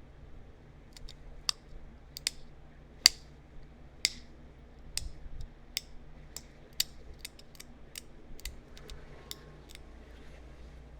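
Pressure flaking a small point of heat-treated chert: sharp, irregular clicks as small flakes snap off under the flaker, around twenty in all, the loudest about three seconds in.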